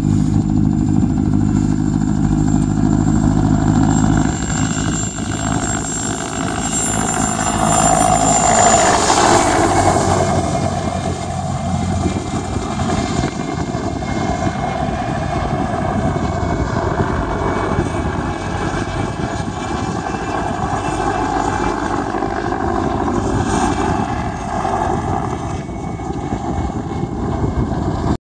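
Mil Mi-2 helicopter in flight, its main rotor and twin turboshaft engines running with a steady whine. The sound swells to its loudest about eight to ten seconds in as the helicopter passes low and close, then eases as it climbs away.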